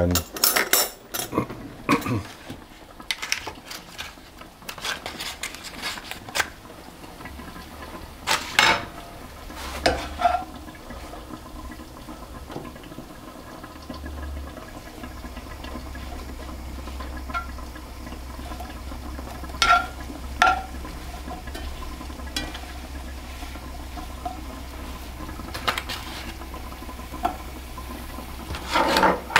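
Chestnut mushrooms frying in butter in a frying pan, with a metal slotted spatula knocking and scraping against the pan now and then as they are stirred. A steady low hum comes in partway through and grows louder about halfway.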